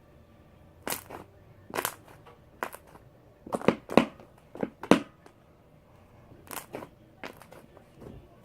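Slime being kneaded and stretched with shaving cream worked into it, giving about ten irregular sharp pops and crackles.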